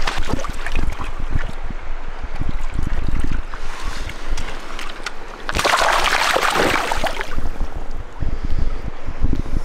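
Wind buffeting the microphone with a heavy rumble, over the rush of river water and scattered handling clicks; a louder burst of rushing noise comes a little past the middle.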